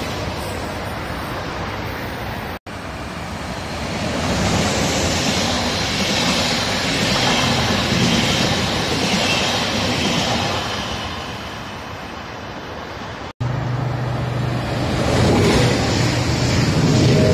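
Passenger trains passing at speed close by, a steady loud rush of wheels on rail and air. First an ICE high-speed train, then a rake of red regional coaches, then a white-and-yellow regional electric multiple unit with a steady low hum. The sound breaks off abruptly twice between them.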